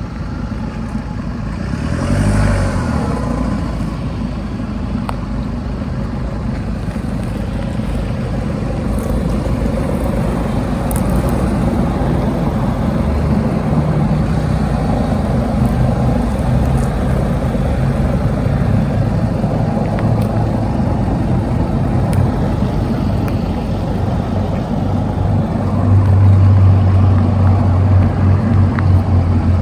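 2021 Chevy Colorado's 2.8-litre Duramax four-cylinder turbodiesel running steadily as the truck creeps along at low speed. The engine note gets louder near the end as the truck works its way onto the dirt verge by the curb.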